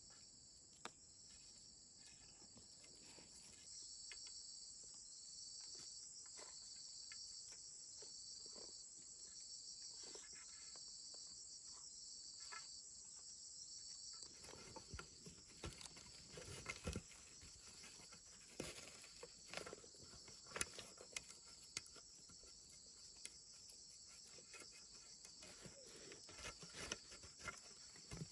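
Faint insects chirping steadily in a high, continuous drone that pulses in a regular rhythm for a stretch. From about halfway, scattered light knocks and rustles join it.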